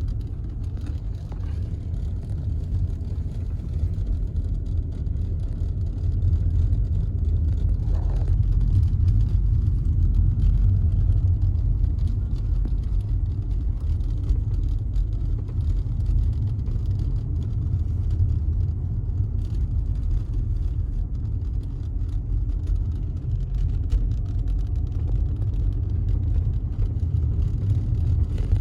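A car driving along a road, its engine and tyre noise a steady low rumble that grows a little louder about six seconds in.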